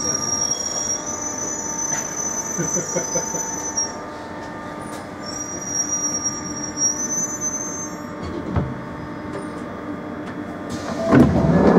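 London Underground 1996 Tube Stock train slowing along a platform, heard from inside the carriage: the wheels rumble on the rails under high, steady squeals from the wheels and brakes, which come and go. Near the end there is a short, louder rush of noise.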